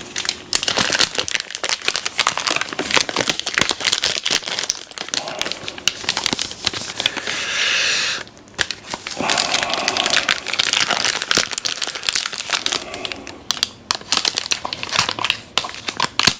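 Plastic packaging of a printer ink cartridge crinkling and crackling as it is handled and pulled open; the plastic is tough.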